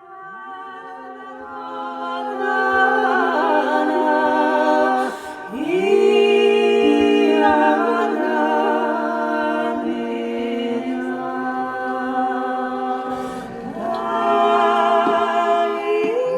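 Unaccompanied group of voices singing in harmony over a steady held low note, in long sustained phrases. There are brief breaks for breath about five seconds in and again near thirteen seconds.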